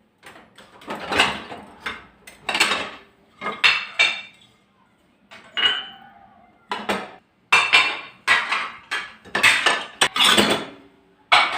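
Dishes and cutlery being handled, clinking and clattering against each other about once a second, some knocks leaving a short ringing tone.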